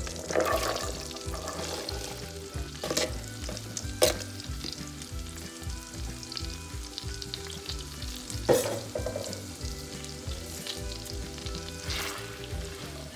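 Diced carrots, onion and celery sizzling in melted butter in a cast iron skillet, stirred with a silicone spatula. A few sharp knocks stand out, the loudest about 4 and 8.5 seconds in.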